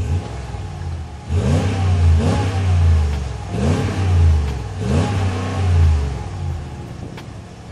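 A Ram 1500 Rebel's 5.7-litre V8 fires up with a puff of smoke from the dual exhaust tips. It is then revved four times, each rev rising and falling back, before it settles to an idle.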